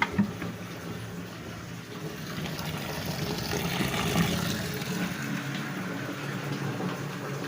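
Water running and filling into a washing machine's wash tub, a steady rush of water, with a single knock just after the start.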